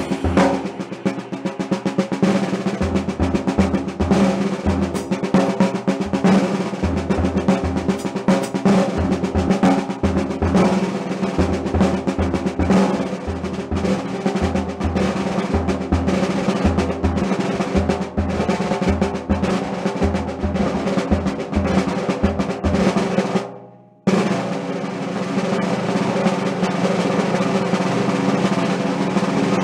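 1938 Leedy Broadway Parallel snare drum, fitted with an Aquarian batter head, played with sticks in fast rolls and strokes. Low thuds sound beneath in a pattern for the first twenty-odd seconds. The sound drops out briefly about 24 seconds in, then resumes as a more even roll.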